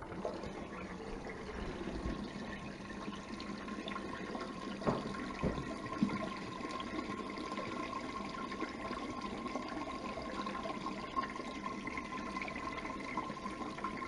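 Wash water draining from a portable non-electric washing machine through its plastic drain hose into a stainless steel kitchen sink, a steady running and splashing. A few light knocks come about five to six seconds in.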